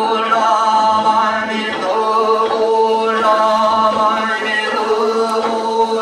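Korean Buddhist yeombul chanting: a male voice chanting in long, drawn-out melodic phrases over a steady drone.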